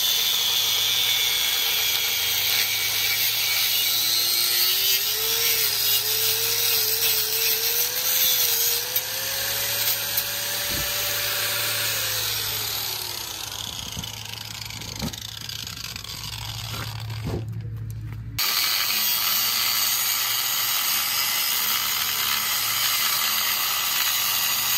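Power tool cutting a steel hitch prong: a steady cutting hiss over a low hum. The motor's note climbs and wavers for several seconds, then sags away, as the tool is pressed into the cut hard enough to pull the motor down. The sound breaks off briefly about 17 seconds in, then carries on.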